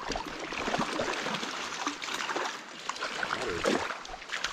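A small, shallow stream running over stones, with irregular small splashes and clicks.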